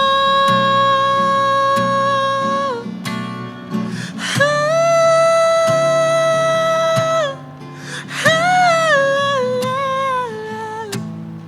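Music: a man's voice holds two long wordless high notes, the second a step above the first, then slides through a wavering run, over strummed acoustic guitar chords.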